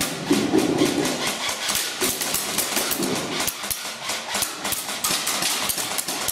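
Airsoft guns firing: a dense run of sharp cracks and clicks, several a second, kept up through the whole stretch.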